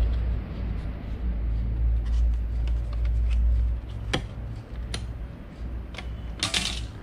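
A thin PVC sheet being handled: a few sharp clicks about four, five and six seconds in and a short rustle near the end as the plastic is flexed. Under it, a steady low rumble.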